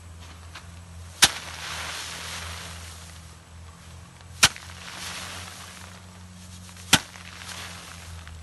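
Rice sheaves being beaten by hand against a wooden threshing board to knock the paddy grain loose: three sharp smacks about three seconds apart, each followed by a brief rustling hiss.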